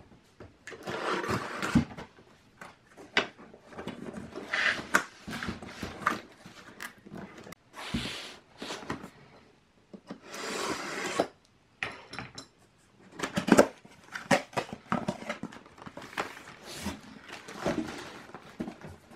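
A cardboard box being slit open with a knife and its flaps and lid handled: irregular scraping and slicing noises with scattered knocks of cardboard.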